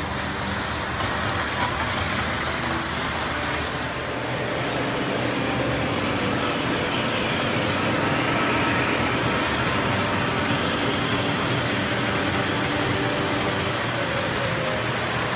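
Model train running on its layout track: a steady rolling rumble that grows a little louder about four seconds in.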